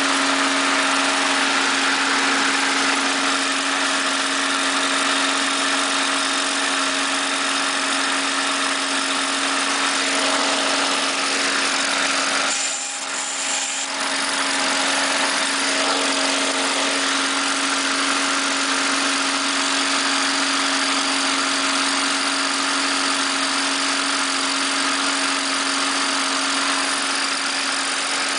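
Small engine of a just-repaired mower running steadily at a constant speed after being pull-started. The sound dips briefly about halfway through.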